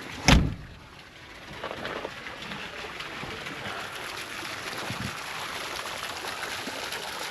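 A chicken-coop door shut with a single sharp bang near the start, followed by a steady hiss with faint scattered ticks.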